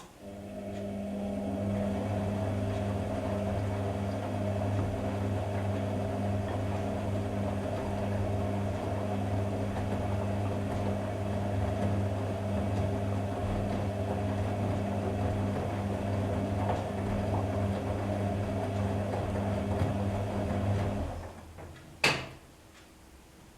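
AEG Öko Lavamat Edition 2000 washing machine running a steady humming component, most likely its pump, which starts at once and cuts off about 21 seconds later. A single sharp click follows about a second after it stops.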